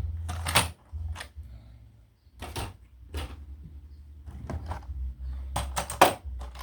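Irregular sharp clicks and knocks from plastic toy vehicles and their packaging being handled, with a close cluster of clicks about six seconds in, over a low steady hum.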